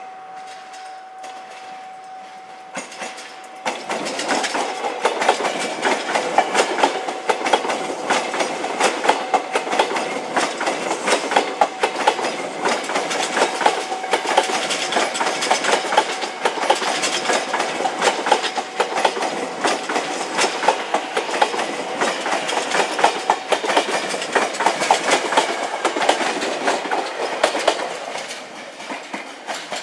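KRL electric commuter train passing close by at low speed. It opens with a steady whine, and about three and a half seconds in the wheels start clattering loudly over the rail joints and points as the cars roll past, easing off near the end.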